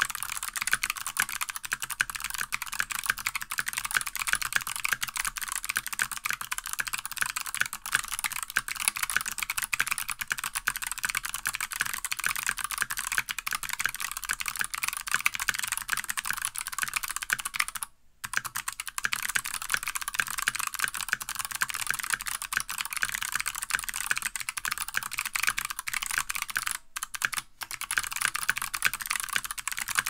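Fast continuous typing on a tenkeyless mechanical keyboard fitted with stock, unlubed Kailh Box White clicky switches (the early pre-tooled version) and PBT keycaps: a dense stream of sharp, crisp clicks. The typing stops briefly about 18 seconds in and twice more around 27 seconds in.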